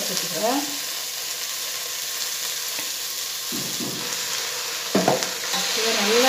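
Chopped onions and siru keerai (small amaranth greens) sizzling in hot oil in an open pressure cooker while being stirred with a steel ladle. The sizzle is steady and grows a little louder near the end.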